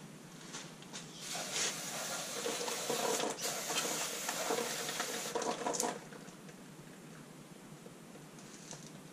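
Aerosol brake cleaner being sprayed into an opened Sanden 709 A/C compressor housing to flush out refrigerant oil and tapping shavings. The hissing spray comes in several uneven surges from about a second in and cuts off about six seconds in.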